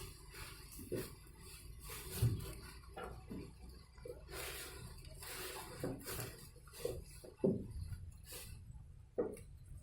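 Sheep feeding on cut Napier grass: stalks rustling and crunching irregularly, with short animal sounds now and then.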